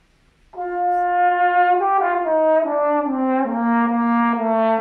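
Trombone playing a slow legato phrase. It comes in about half a second in and steps down through several connected notes before settling on a long, held low note.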